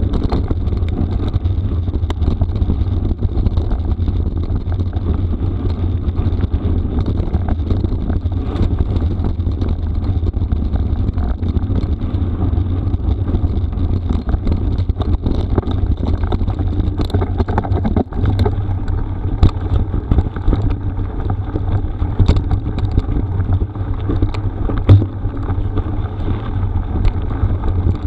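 Mountain bike ridden over a rough gravel forest road: a steady low rumble of wind on the microphone and tyres on gravel, with scattered sharp knocks and rattles from the bike over the bumps, the loudest about 25 seconds in.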